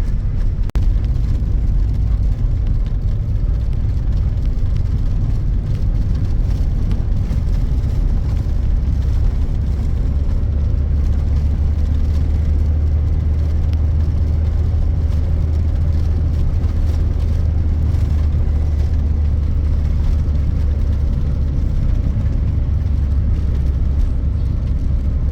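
Motor vehicle driving: a steady low rumble of engine and road noise, growing stronger about ten seconds in.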